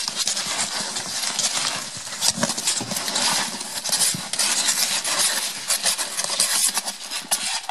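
Puppies scrabbling and rustling right by the microphone: a dense, loud stream of scratches and clicks.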